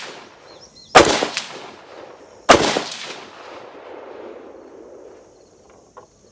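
Two shots from a PSA PA10 AR-10 pistol in .308 with a 12.5-inch barrel, about a second and a half apart, each trailing off in a long echo. A faint click follows near the end.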